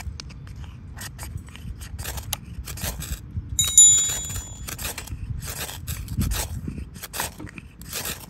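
Ferro rod struck again and again over tinder in a steel wood-gas camp stove: short rasping scrapes, roughly one or two a second, throwing sparks that are not catching. A short bright chime rings about four seconds in.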